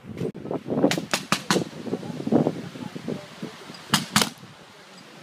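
Paintball markers firing: a quick run of four sharp shots about a second in, then two more near four seconds.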